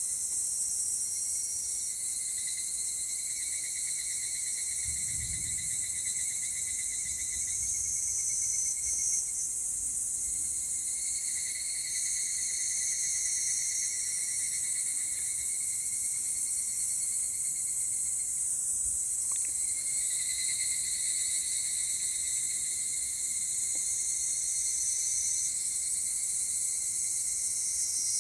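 Cicadas singing in chorus: a steady high buzz throughout, with a pulsing, pitched call overlaid in phrases several seconds long that come and go.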